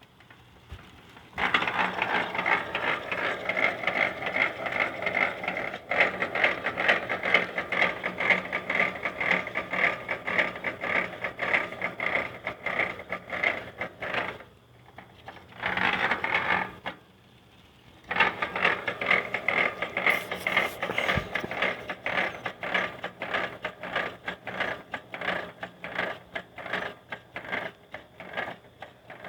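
Mountain bike making a rapid, loud run of knocking clicks as its mechanism turns; the cause is unknown. It stops about halfway through, comes back in a short burst, then starts again a couple of seconds later and runs on.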